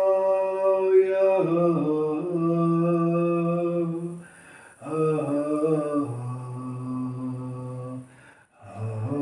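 A single voice toning wordless healing sounds: long held notes that wobble and step lower, with two short breaks for breath about four and eight seconds in.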